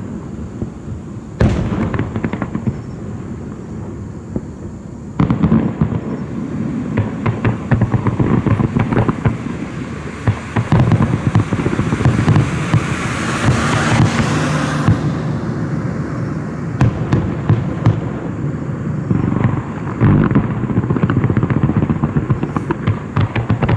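Fireworks display: a sharp bang about a second and a half in and another about five seconds in, then a long run of dense crackling from many small bursts that swells to a hissing peak around the middle before thinning out.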